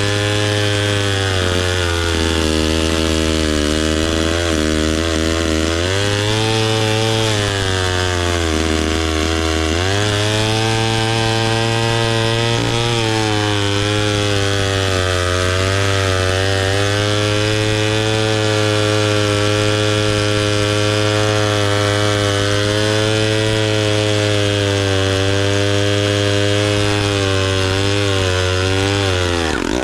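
Vintage 1957 Danarm Fury chainsaw's Villiers 5F 98cc two-stroke engine running. Its speed dips twice in the first ten seconds, then holds steady and high.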